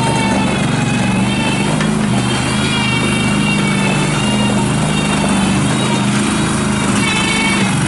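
Terramite T5C compact backhoe loader's Kohler 20-horsepower V-twin gas engine running steadily, with a higher whine that wavers in pitch over it.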